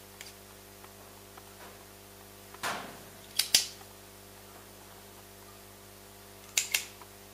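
Bolt mechanism of a metal Mark II bolt-action pen being worked: two pairs of sharp clicks about three seconds apart. A brief scrape comes just before the first pair.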